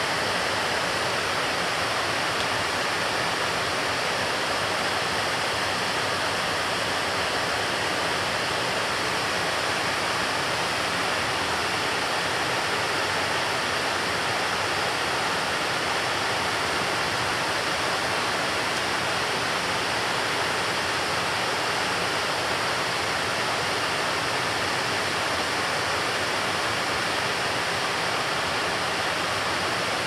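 A steady, even rushing noise with nothing standing out from it and no change in level.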